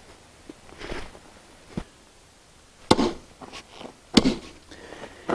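Flat hand tamper striking a crushed-granite paver base: a few light knocks, then two solid thuds about three and four seconds in.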